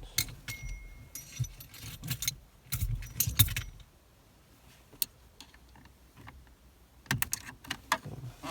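Metal tools clicking and clinking in irregular bursts as a socket works the steering wheel's center bolt, busiest in the first few seconds and again near the end.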